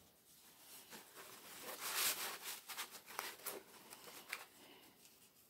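Cross-stitch fabric rustling as it is handled and folded by hand, in soft irregular swishes, loudest about two seconds in.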